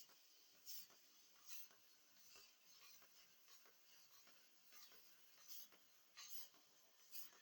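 Near silence: faint room tone with soft, scratchy ticks at irregular spacing, roughly one a second.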